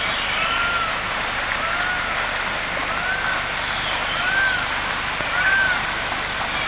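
A bird calling over and over, a short call that rises and falls in pitch, about once a second, over a steady rushing noise.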